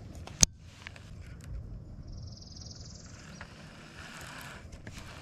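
Handling of a Lew's baitcasting reel: one sharp, loud click about half a second in, then a few faint clicks. A short high, buzzy hiss comes and goes around two to three seconds in.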